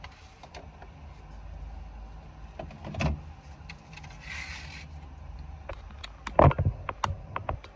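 Takeout burger being handled in its paper wrapper and bag: a short rustle, then several sharp knocks and thumps near the end, over a low steady rumble inside the car.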